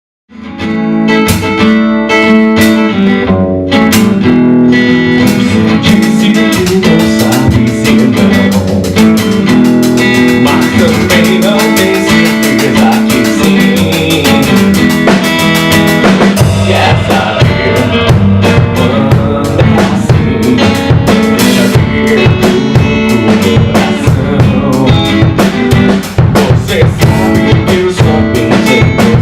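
Band music with guitar and drum kit, starting abruptly about half a second in; the drumming gets busier about halfway through.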